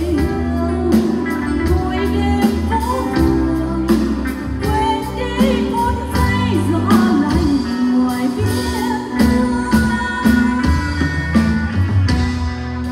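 A singer performing a slow Vietnamese song with a live band: a sung melody with vibrato over a steady drum beat and bass.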